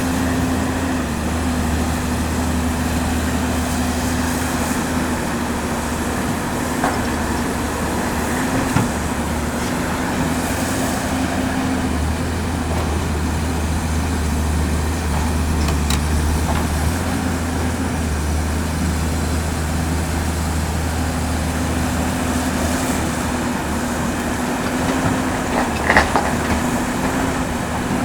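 Cat 329D L hydraulic excavator's diesel engine running steadily while loading excavated earth. There are a few short clanks, the loudest near the end.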